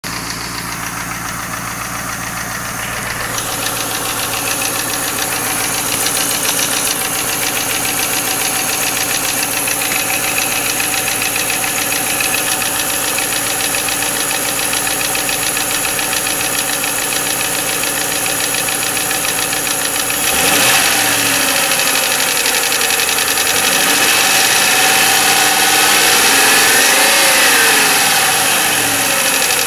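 1995 Lincoln Mark VIII's Ford 4.6-litre DOHC V8 idling with a rapid tapping/knocking, then revved up and down a few times from about two-thirds of the way through. The owner is unsure whether the tap is lash adjuster noise or piston slap or rod knock.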